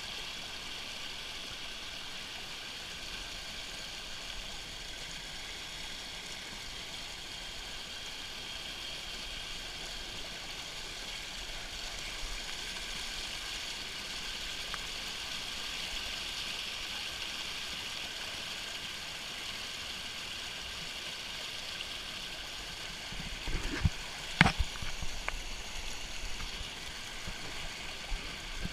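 Steady rush of water from a waterfall and its stream. Near the end come a few sharp knocks, one much louder than the others.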